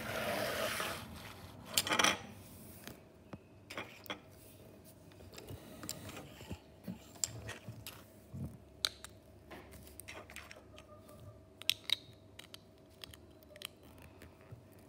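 LEGO bricks being handled and snapped onto a round plate: scattered light plastic clicks and taps, with a louder clatter about two seconds in.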